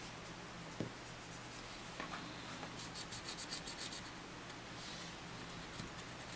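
Faint scratchy rubbing of a cotton swab wet with isopropyl alcohol scrubbing the inner ring of a pinball diverter's flat cam assembly, in short uneven strokes over a faint steady low hum.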